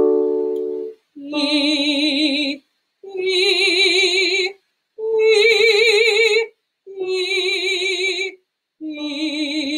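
A keyboard chord, then a woman's voice singing a warm-up exercise: five held notes with vibrato, stepping up in pitch and then back down. This is a voice teacher demonstrating the pattern.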